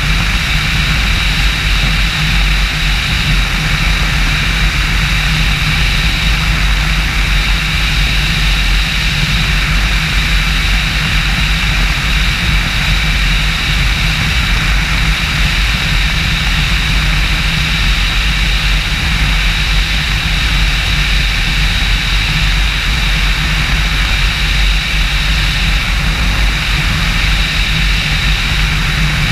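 Triton bass boat's outboard motor running at wide-open throttle at about 90 to 100 mph: a steady, unbroken drone with a high whine over it, mixed with heavy wind rush on the microphone.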